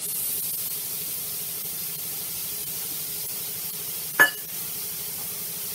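Steady high hiss from a sauce pan of raw tomato wedges on a lit stove as the pan heats, with one sharp clink about four seconds in.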